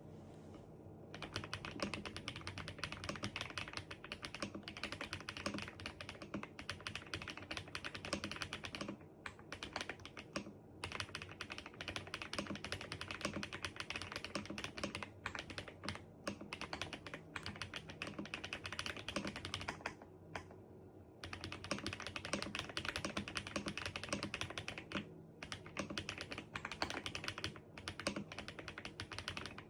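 Aula F87 Pro mechanical keyboard with HMX Xinhai switches being typed on fast, a dense run of key clicks that starts about a second in and breaks off briefly three times, around nine, twenty and twenty-five seconds in.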